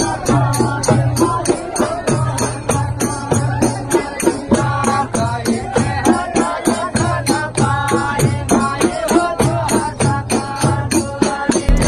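Devotional folk singing with a fast, steady beat of jingling hand percussion, about five strokes a second, over deeper pulses roughly once a second. The music changes abruptly just before the end.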